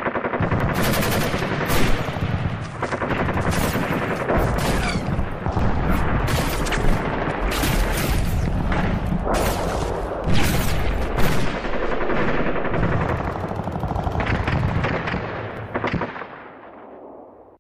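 Sustained rapid gunfire, many shots overlapping in quick succession, dying away near the end.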